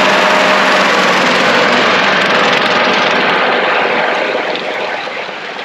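Tractor engine and its PTO-driven mower running loud right beside the open cab, a dense steady roar that fades slowly as the tractor moves off.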